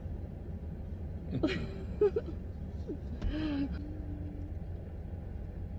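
Steady low rumble of a car cabin on the move, with two brief wordless vocal sounds: a short exclamation with a sharp click about two seconds in, then a held hum-like note a little later.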